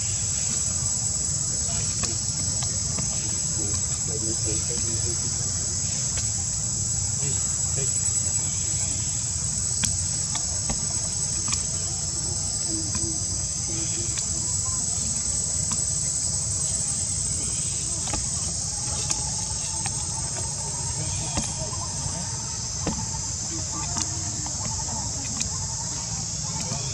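Steady high-pitched drone of an insect chorus, unbroken throughout, over a low steady rumble.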